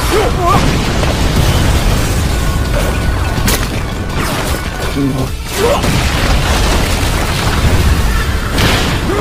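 Anime battle sound effects: a deep, continuous booming rumble of explosions under a dramatic music score, with a character's yell near the start.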